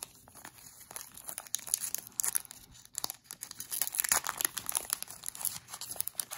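Foil wrapper of a baseball card pack crinkling and tearing as it is peeled open by hand, with crackling that picks up about a second in.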